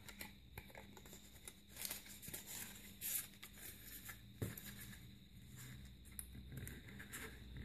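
Faint rustling and light scraping of paper and thin cardboard being handled: a smartphone's instruction booklet and its card sleeve, with a few brief louder rustles.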